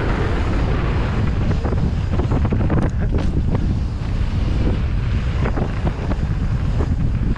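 Wind rushing over a GoPro's microphone as a downhill mountain bike speeds down a dirt trail, with tyre roar and rattles and clacks from the bike over the bumps; a few sharp clacks come close together about three seconds in.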